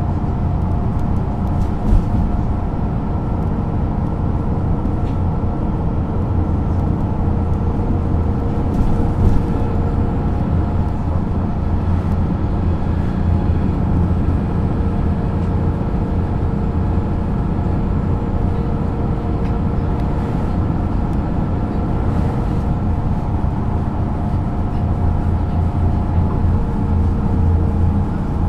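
MAN NG 313 articulated bus's diesel engine running steadily: a deep, even drone with a few faint steady whining tones above it.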